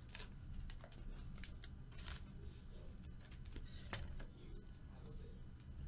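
Faint, scattered taps and rustles of trading cards and a cardboard card box being handled on a tabletop.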